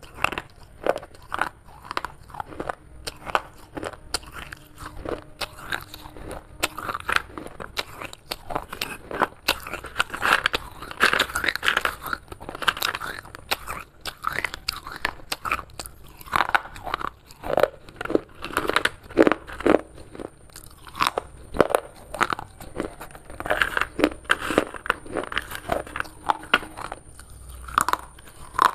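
Someone biting and chewing pieces of broken baked clay (terracotta pottery shards): irregular sharp crunches, several a second, coming in louder clusters.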